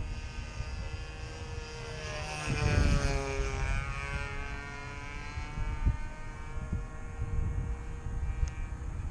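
Evolution 60 glow engine of a Phoenix Tiger model airplane in flight, a steady high-pitched buzz that swells as the plane passes about three seconds in and then drops in pitch as it moves away. Wind rumbles on the microphone underneath.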